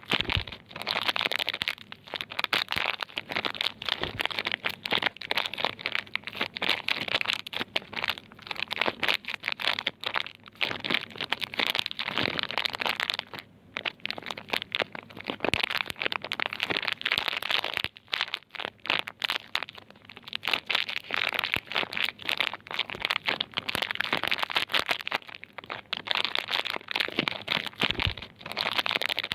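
Wrapping on bars of soap crinkling and crackling as it is handled, folded and peeled by hand: a dense, continuous run of fine crackles that briefly lets up twice.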